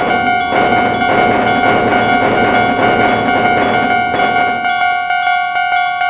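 Railroad crossing warning bell ringing in a quick, steady ding-ding rhythm. A passing train's rushing noise sounds over it from about half a second in and dies away about a second before the end.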